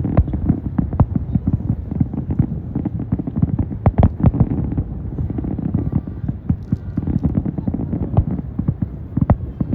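Fireworks going off in a rapid, continuous barrage of booms and pops, several a second.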